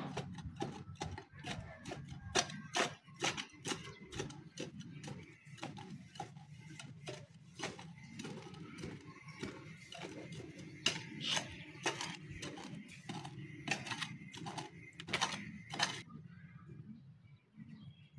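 A small hand tool digging into loose garden soil for planting: a string of irregular scrapes and knocks, one or two a second, that stop a couple of seconds before the end.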